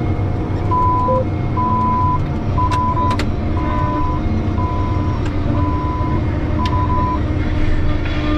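Steady drone of a John Deere 8345R tractor heard from inside the cab, with a run of about eight short electronic beeps at one pitch, roughly one a second, starting about a second in.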